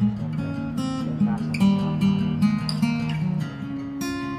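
Background music with plucked acoustic guitar, a melody of changing notes over a steady accompaniment.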